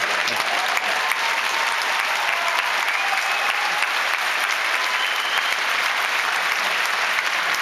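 Large audience applauding steadily after a punchline, a dense wash of many hands clapping.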